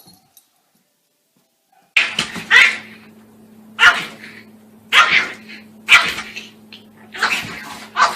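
A dog barking, six or seven loud single barks about a second apart, starting about two seconds in, with a faint steady low hum underneath.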